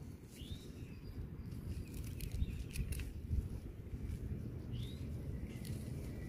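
Gloved hand rustling through and plucking cat's ear leaves, with faint snaps and clicks over a low steady rumble. A bird chirps briefly twice, once near the start and once about five seconds in.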